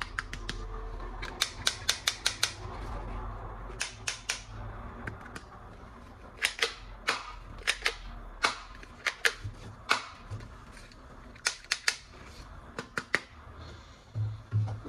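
Sharp clicks and snaps of a hard-plastic toy gun being handled, in quick runs of several clicks (about four a second) with single clicks between.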